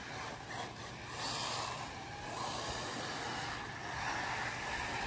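Brushless electric Arrma Typhon 6S RC buggies running laps on a dirt track: faint motor whine and tyre noise that swells and fades as the cars come round.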